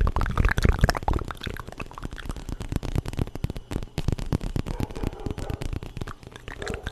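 Close-miked ASMR mouth sounds: a fast, dense run of wet clicks and smacks, loudest in the first second.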